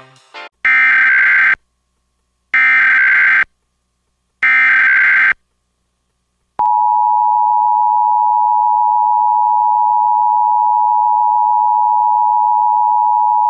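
Emergency Alert System tones: three short SAME header data bursts, a harsh electronic screech of about a second each, then after a gap the steady two-tone EAS attention signal, two close pitches held together without a break. The header bursts and attention tone announce a tornado warning activation.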